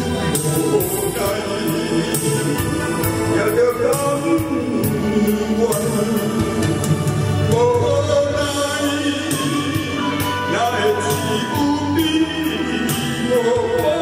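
A man singing a song through a handheld microphone over accompanying music with a steady beat.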